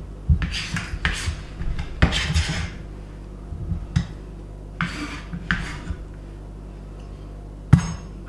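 Cutlery and dishes clinking and scraping in several short bouts as food is handled, with a sharp knock in the middle and a louder one near the end.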